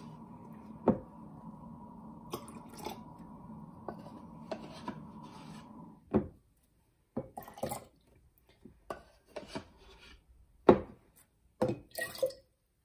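Plastic measuring cup scraping and knocking against a plastic bowl as liquid is scooped, with scattered clicks and taps, and liquid poured into a glass jar near the end. A faint steady hum stops about halfway through.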